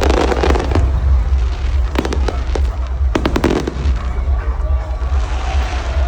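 Aerial fireworks going off: clusters of rapid crackling pops near the start, about two seconds in and again around three seconds in, over a steady low rumble.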